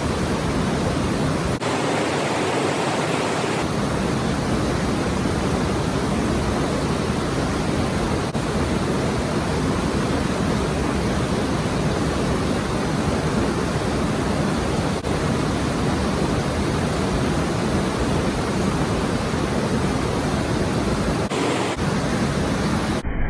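Steady, loud rushing noise with no distinct strokes or rhythm, changing abruptly a few times.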